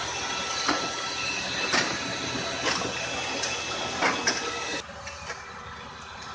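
Tractor-driven firewood processor running with a steady mechanical hum, over which pieces of wood knock sharply against metal about once a second. About five seconds in, the running sound drops and becomes quieter.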